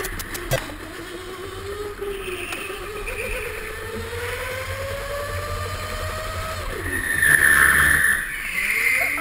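Go-kart engine revving steadily higher as the kart accelerates down a straight. About seven seconds in, the pitch drops sharply as the driver lifts off into a corner, with a louder rushing hiss. Near the end the engine climbs again as the kart pulls out of the turn.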